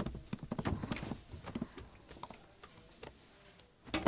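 Several people's boots walking on a wooden floor: a quick run of footsteps over the first second and a half, then a few scattered taps.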